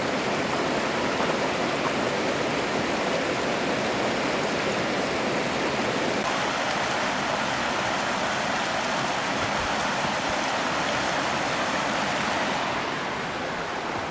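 Steady rush of flowing water from a mountain river and a cascading waterfall, a little quieter near the end.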